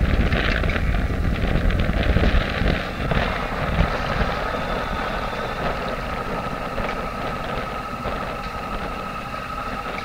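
Sailboat's auxiliary engine running steadily under way, with wind buffeting the microphone for the first few seconds. A steady high whine joins about three seconds in.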